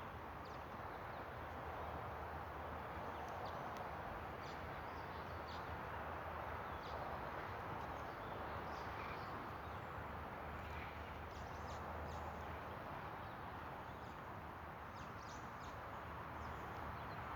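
Outdoor ambience: a steady hiss with many short, faint bird chirps scattered throughout and a low steady hum underneath.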